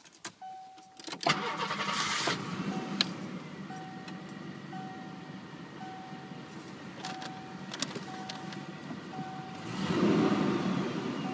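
1989 Ford Thunderbird LX's 3.8-litre V6 cranks and catches about a second in, then idles, with a brief rise in revs near the end. A dashboard warning chime dings about once a second over it.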